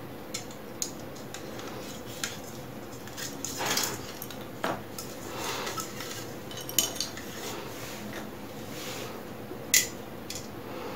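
Light clicks, taps and rustling of small plastic fishing tackle being handled, with about half a dozen sharper clicks scattered through, as fishing line is threaded through a plastic float and its parts.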